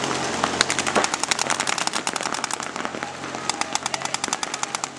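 Paintball markers firing in rapid strings of sharp pops, with the fastest, densest burst near the end.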